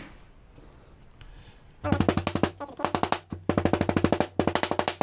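Quiet at first, then from about two seconds in a fast, even run of sharp knocks, about ten a second like a drum roll, with a couple of short breaks.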